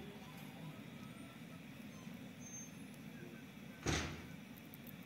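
Handheld butane blowtorch on a gas canister running with a steady low rush of flame while it lights firewood. One sudden louder noise about four seconds in, fading quickly.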